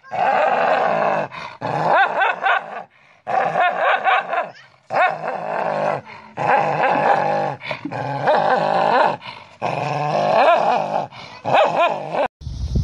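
A dog snarling and growling in repeated bouts of a second or two, with some barks mixed in, at its own reflection in a mirror. The sound cuts off abruptly near the end.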